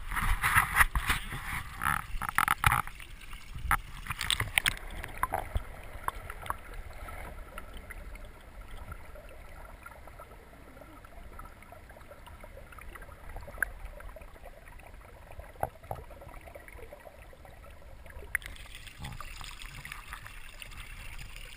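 Water sloshing and splashing around a camera at the surface, with sharp splashes in the first few seconds. It goes muffled and quiet with scattered faint clicks while the camera is underwater, then surface water sloshing returns near the end.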